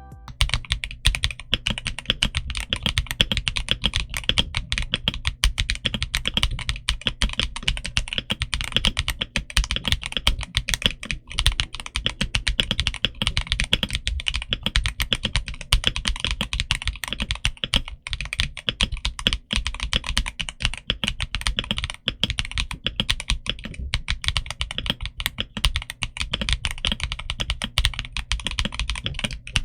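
Steady, fast typing on a Redragon K709 65% mechanical keyboard fitted with linear switches: a continuous run of quick key clicks.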